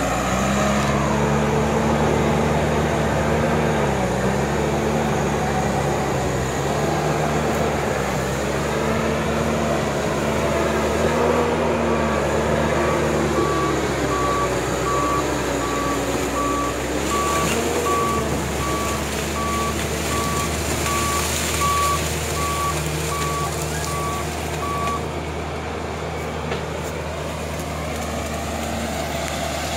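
Bulldozer's diesel engine running, its pitch dipping and rising as it works. From about a third of the way in, a backup alarm beeps about once a second for some fourteen seconds, then stops.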